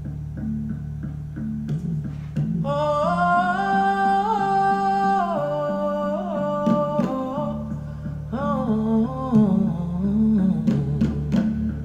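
Recorded music played through Cabasse Antigua MC170 loudspeakers and picked up by room microphones: a plucked bass line with a wordless hummed vocal melody over it.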